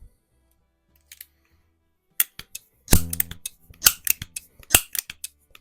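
Quick series of sharp mechanical clicks and clacks from a Crosman 130-type multi-pump .22 pellet pistol being worked between shots, as in pump strokes and loading. One louder metallic clack about three seconds in rings briefly.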